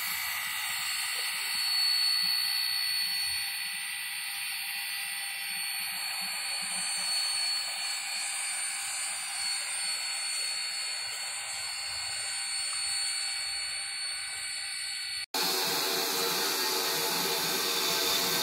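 Steam locomotive standing in steam, hissing steadily with an even high whine over the hiss. About fifteen seconds in there is a brief dropout, after which the sound is fuller and lower.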